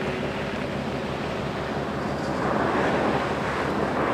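Ford Fiesta R2 rally cars driving on a loose dirt and gravel course: engines running under a steady rush of tyre noise. It gets louder about two-thirds of the way in as one car comes close.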